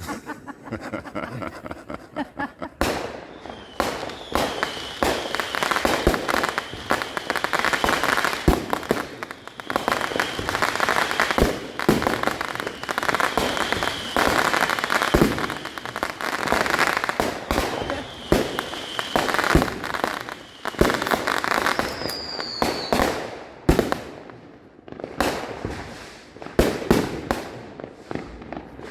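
Consumer fireworks going off in a dense, continuous barrage of bangs and crackling, with a short falling whistle about three quarters of the way through.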